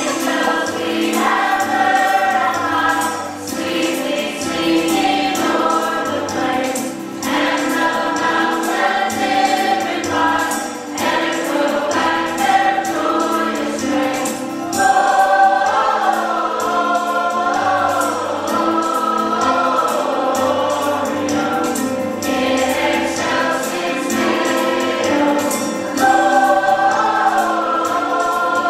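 A choir singing a song over musical accompaniment, with sung phrases running continuously throughout.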